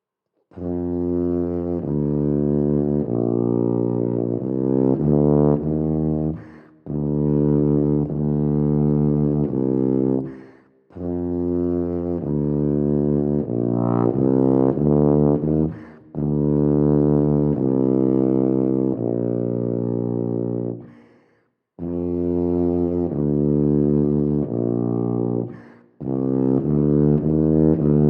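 Wessex Wyvern TC590P C tuba played solo: a melodic study of changing low, full notes, in phrases of four to five seconds with short breaks between them.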